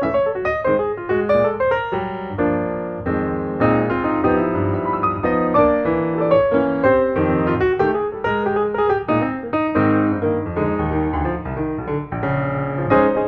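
Background music: piano playing a quick run of notes and chords.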